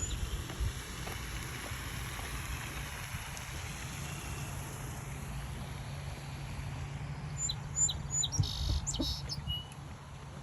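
Small bird chirping, a quick run of short high calls about seven to eight seconds in and a brief flurry just after, over a steady low rumble.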